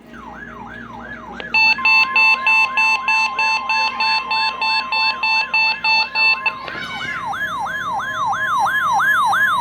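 NOAA Weather Radio warning alarm tone, a steady single tone that comes in about two seconds in. It is heard together with an electronic siren falling in pitch about three times a second throughout and rapid beeping about four times a second for the first several seconds. Together this is a weather radio test alert signal.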